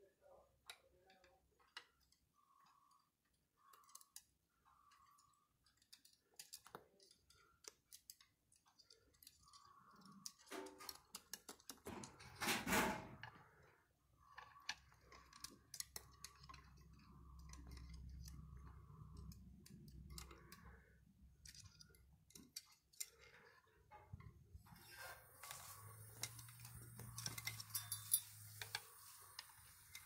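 Quiet, scattered clicking and tapping of an African grey parrot's beak and claws gripping the wooden spindles of a chair back as it climbs, with a few soft short sounds between the clicks and one louder brief noise about twelve seconds in.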